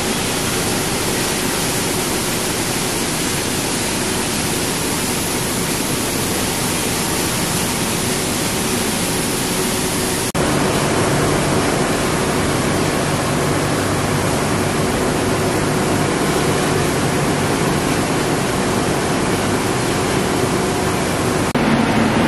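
Lithium battery recycling machinery running: a dense, steady rushing noise with a faint steady hum. About ten seconds in it changes abruptly to a slightly louder machine noise with a lower hum, and changes again near the end.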